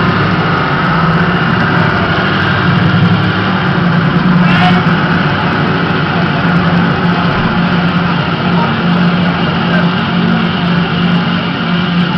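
Loud, steady droning sound with a strong low hum, unbroken throughout, and a brief hiss about four and a half seconds in.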